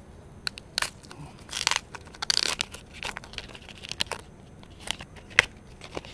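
Paper wrapping being peeled off a new tablet: paper rustling and tearing in irregular bursts, with one sharp crack near the end.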